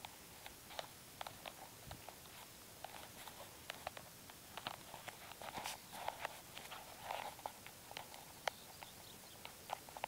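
Faint footsteps on a grassy dirt track: scattered soft clicks and rustles at an irregular pace, a little busier in the middle.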